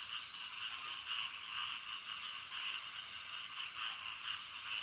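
A night-time animal chorus: a steady, pulsing high chirring that never stops, with no single loud event.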